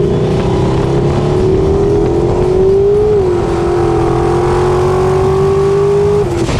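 Turbocharged LS V8 drag car pulling hard at full throttle under boost. The engine note climbs steadily, drops once with an upshift about three seconds in (the shift into third), climbs again, then falls away sharply as the throttle is lifted near the end. Boost peaks around 25 psi on this pull.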